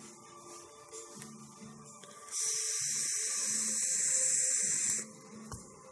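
Fused Clapton coil in a freshly dripped atomizer firing as a hit is drawn: e-liquid sizzling into vapour with a steady hiss, starting a little over two seconds in and stopping after about two and a half seconds.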